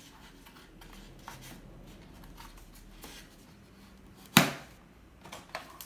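Foam battery hatch of a foam RC plane being handled and pressed into place over the battery bay: soft rustling and light taps, then one sharp, loud snap about four seconds in as the hatch seats, followed by a couple of small clicks near the end.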